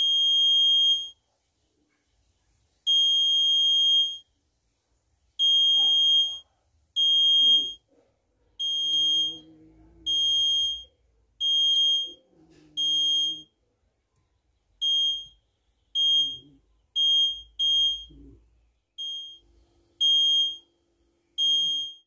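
Laser security alarm's buzzer beeping at one high steady pitch, about fifteen beeps of uneven length, some over a second long and others brief, sounding each time a hand breaks the laser beam.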